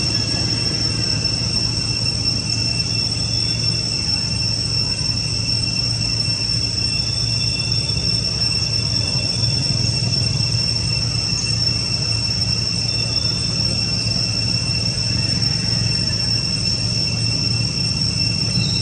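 Forest insects droning: a steady, unbroken high-pitched whine with a second, lower steady tone beneath it, over a constant low rumble.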